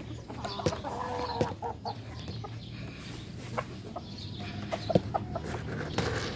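Gamecock rooster clucking, a few short calls in the first two seconds, with scattered clicks and one sharp click about five seconds in.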